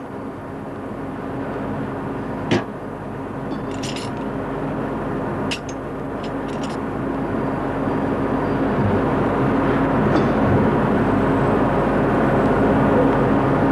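A steady machine-like hum that slowly grows louder, with a few short, sharp clicks in the first part.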